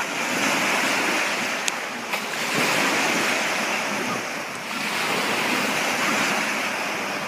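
Water rushing and splashing past a moving boat with wind on the microphone, swelling and easing every couple of seconds. Two short sharp clicks come a little under two seconds in.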